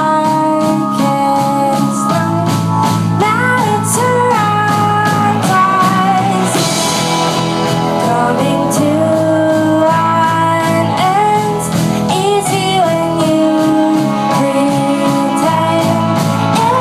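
A live indie rock band playing: a woman's lead vocal sung over electric guitar, keyboard and a steady drum beat, with a cymbal crash about six seconds in.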